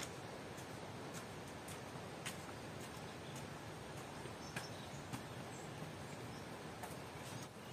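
A few light footsteps on a concrete path, each a faint click, over a steady outdoor hiss.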